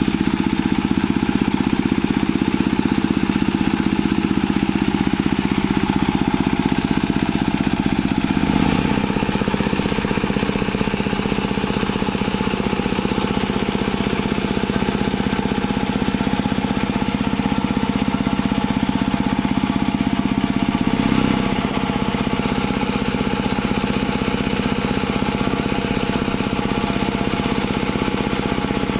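Single-cylinder diesel engine of a two-wheel hand tractor running steadily under load, with its rotary tiller working a flooded rice paddy. The sound shifts slightly about nine seconds in and again around twenty-one seconds.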